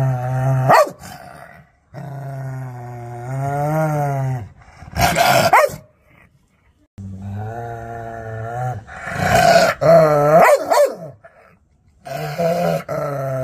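Rottweiler growling in several long, low, steady growls of two to three seconds each, with short pauses between. A few short, loud barks or snarls break in, about a second in, around five seconds and around ten seconds.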